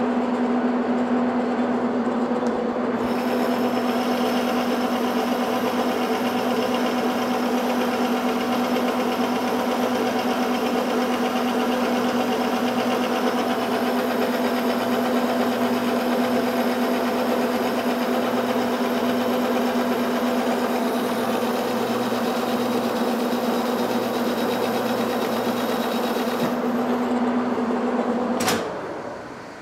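18-inch Monarch lathe running under power, a steady machine hum with a held pitched tone, while the tool takes a skim cut along the outside diameter of the workpiece in the three-jaw chuck. Near the end the lathe is shut off with a single knock and the hum dies away.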